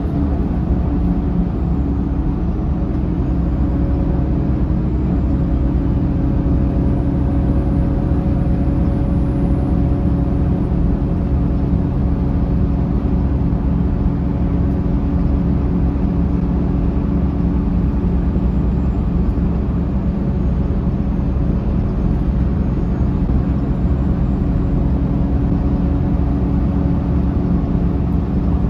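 Interior sound of a 2005 Mercedes-Benz OH1728 bus on the move: its diesel engine and ZF automatic transmission running at a steady cruise, with a constant hum of unchanging pitch over road and tyre rumble.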